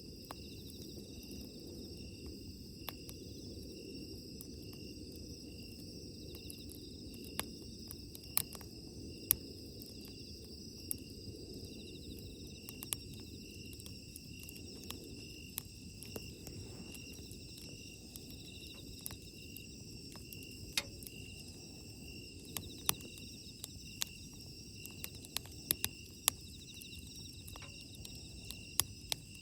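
Wood fire burning with a low, steady rumble and irregular sharp crackles and pops, which come more often in the second half. Insects trill steadily throughout.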